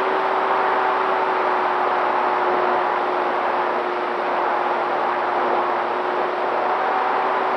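Electric motor and propeller of a Dynam T-28 Trojan RC plane in flight, heard from its onboard camera: a steady, even whine over rushing wind noise.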